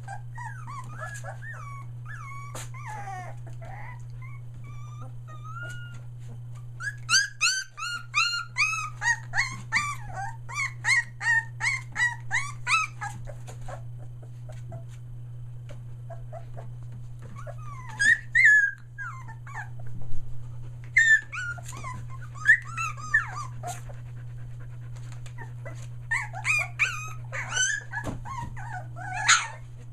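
A litter of three-week-old Australian Shepherd puppies whining and crying: high, wavering cries from several pups at once, coming in bouts with quieter gaps between.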